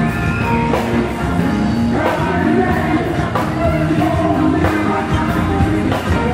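Rock band playing live, with a singer over guitar and a steady drum beat.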